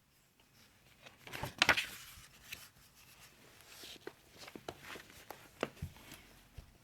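Pages of a book being turned and handled: soft paper rustles and light taps, loudest in a short cluster about a second and a half in.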